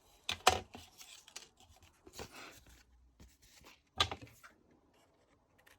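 Cardstock being handled and marked at a craft table: a few sharp taps of paper and tools on the surface, the loudest about half a second in and another at about four seconds, with a short scratchy rubbing stretch around two seconds in.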